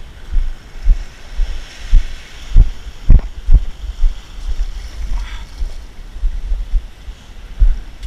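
Wind buffeting the camera microphone in irregular low gusts, over the steady hiss of small waves washing onto the beach.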